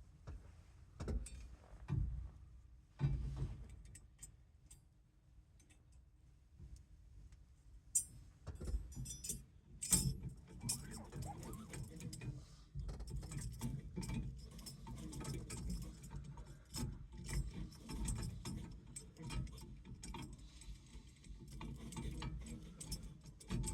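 Irregular clicks, clinks and light knocks of small metal parts and hand tools being handled, sparse at first and busier from about eight seconds in.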